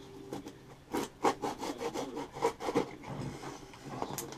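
Knife blade sawing through the tape and cardboard of a small box, a quick run of short scraping strokes starting about a second in, with one sharp click near the end.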